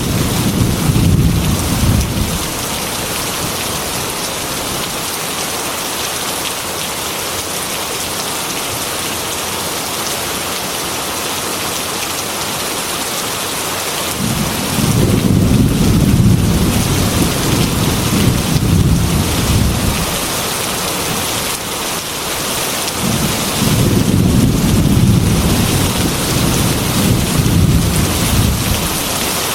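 Heavy rain beating steadily on a glass window in a thunderstorm, with deep rolls of thunder: one fading out about two seconds in, then two long rumbles a few seconds each, around the middle and near the end.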